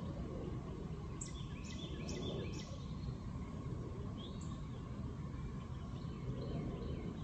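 Outdoor background of a steady low rumble, with a bird calling over it: a quick run of four or five high chirps about a second in, and a few more scattered calls later.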